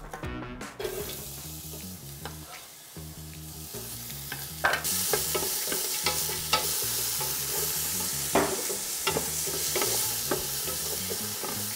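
Sliced onions sizzling in hot oil in a stainless-steel stockpot, stirred with a wooden spoon. The sizzle sets in about five seconds in and holds steady, with a few knocks of the spoon against the pot.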